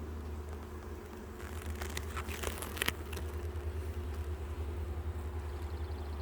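Honeybees humming around an open hive over a steady low rumble, with a few sharp clicks and scrapes about two to three seconds in as the hive's wooden frames are handled.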